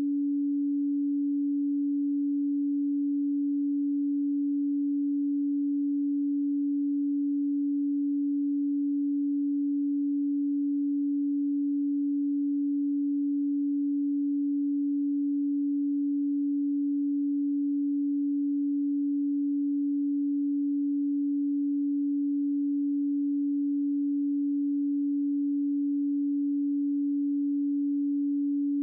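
A pure, steady 285 Hz sine tone, one constant low hum with no change in pitch or loudness.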